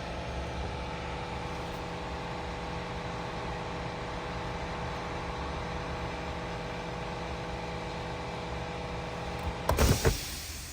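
A steady mechanical hum at an even pitch, like an engine idling, with a short cluster of loud knocks shortly before the end.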